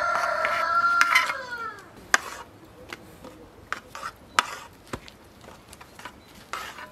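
A rooster crowing once: a loud held call that falls away and ends about two seconds in. After it come scattered light knocks and taps.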